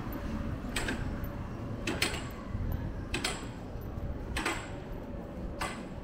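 Footsteps on tiled pavement: a sharp scuff about once every 1.2 seconds, in an even walking rhythm, over a steady low rumble of city background.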